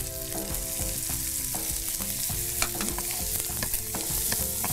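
Chopped onion sizzling in hot butter with garlic and ginger in a non-stick frying pan. A spatula stirs it, scraping and clicking against the pan now and then.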